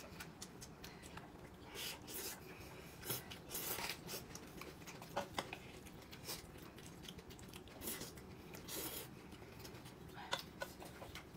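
Quiet eating noises: faint, irregular chewing and small rubbing and handling sounds of food, coming in short bursts.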